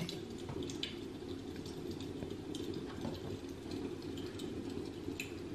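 Quiet room tone with a low steady hum and faint, irregular small clicks and ticks.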